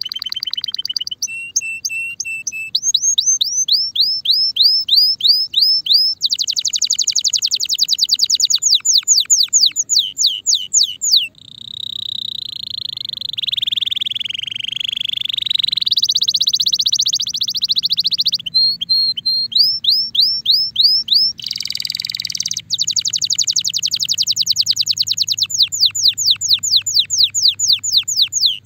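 Male Timbrado canary in breeding condition singing: fast runs of repeated sweeping whistled notes, with a brief break and then a lower, rolling phrase about halfway through before the quick repeated notes return.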